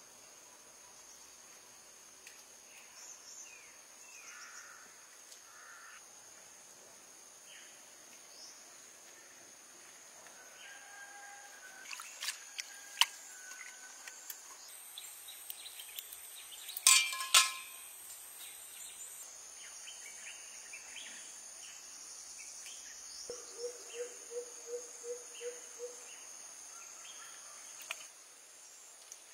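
Steady high-pitched insect buzzing, with scattered faint bird chirps. A few sharp clattering knocks come around the middle, and later a short rapid run of about eight pulsed calls.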